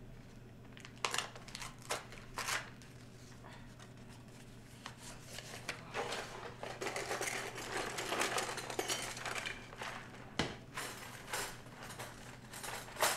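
Paper rustling and crinkling as pages are handled, with a few light clicks and knocks around it.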